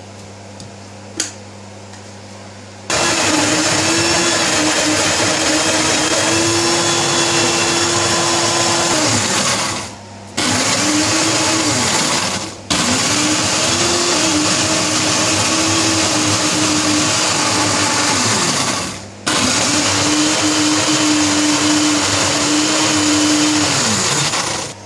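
Countertop electric blender grinding a thick dried-fish chutney paste. It switches on about three seconds in and runs in four stretches with short stops between, its motor hum sagging as each stretch winds down, and it stops near the end.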